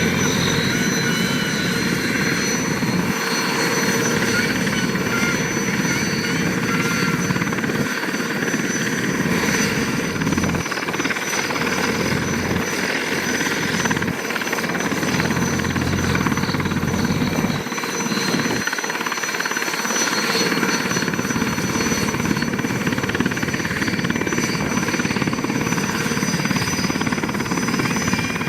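SA-330L Puma helicopter's twin turboshaft engines and rotor running on the ground during startup: a steady turbine whine over a continuous rushing engine and rotor noise.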